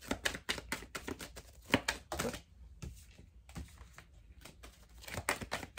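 Tarot cards being shuffled and handled by hand: a run of quick, irregular card clicks and slaps. The clicks are busiest in the first two seconds, thin out in the middle, and pick up again near the end.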